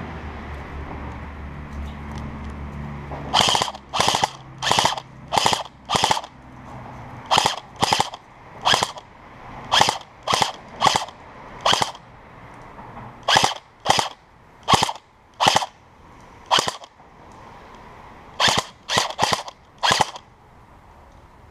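Airsoft gun firing single shots, about twenty sharp cracks spaced half a second to a second apart, now and then in quick pairs, with short pauses between strings. A low steady hum comes before the first shots and fades out as the shooting starts.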